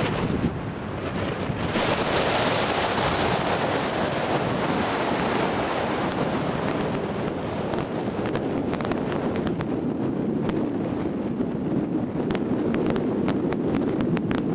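Strong wind blowing across the microphone, a loud steady rushing noise with short crackles in the second half.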